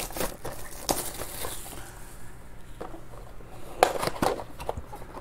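Clear plastic shrink wrap crinkling and rustling as hands pull it off a small cardboard trading-card box. It comes as scattered short crackles, with a denser cluster of rustles about four seconds in.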